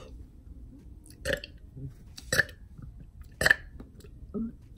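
A man burping on purpose: three short burps about a second apart, the third the loudest, then a softer one near the end.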